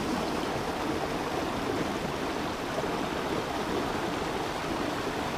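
Mountain river water rushing steadily.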